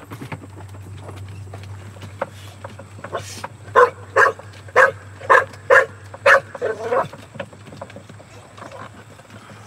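A dog barking from inside a plastic kennel crate: about six sharp barks in quick succession, roughly two a second, beginning a few seconds in.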